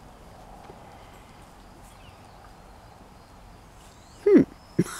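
Faint outdoor background, then near the end one loud, short yelp from a miniature schnauzer puppy, dropping sharply in pitch.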